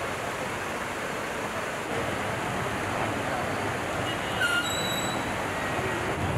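Fast-flowing floodwater of a swollen river rushing steadily. From about two seconds in a lower rumble joins it, and brief high chirps sound near the middle.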